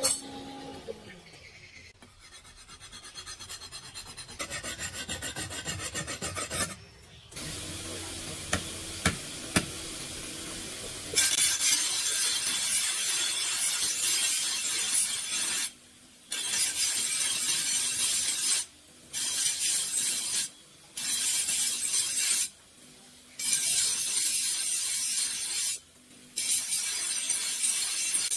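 Electric bench grinder grinding a forged steel cleaver blade: a loud, hissing grind in runs of a few seconds, broken by short breaks as the blade comes off the wheel. Softer rasping comes before it, for the first ten seconds or so.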